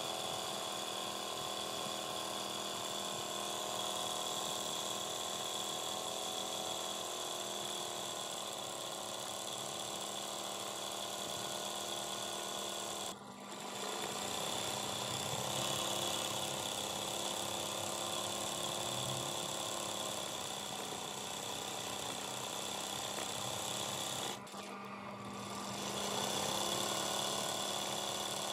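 Sewing machine running fast during freehand embroidery, its needle stitching steadily. The pitch of the motor shifts as its speed changes, and the sound breaks off briefly twice, about halfway through and again near the end.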